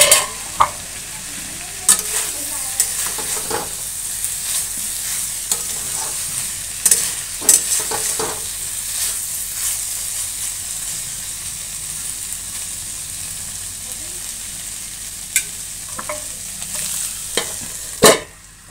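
Cauliflower, onion and spices frying in a metal kadhai, a steady sizzle, with a spatula scraping and knocking against the pan now and then. A metal lid clanks at the start as it comes off and again near the end as it is set back on.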